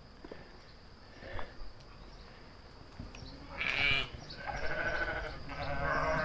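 Sheep and lambs bleating: several wavering calls overlap one another, starting about three and a half seconds in.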